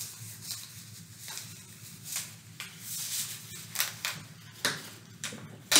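Sterile surgical gloves being pulled on and stretched over the hands and wrists: a run of short, irregular rubbery snaps and rustles, several a second, with the sharpest one near the end.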